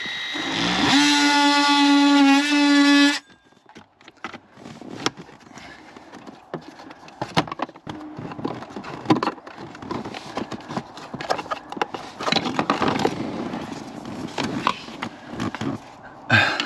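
A power cutting tool spins up and runs with a steady high-pitched buzz for about three seconds, cutting into the plastic HVAC heater box, then stops suddenly. After that come scattered clicks, cracks and rustling as the cut section of plastic box is worked loose.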